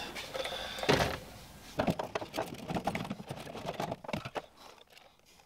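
Clicks, knocks and scrapes of a plastic fuel pump assembly being worked loose and lifted out through the fuel tank's access hatch. One sharp knock comes about a second in, then a run of uneven clicks and scrapes, which die down near the end.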